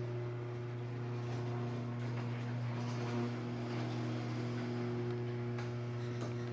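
Craftsman belt-drive garage door opener running, its motor giving a steady, even hum as it drives the door along the rail.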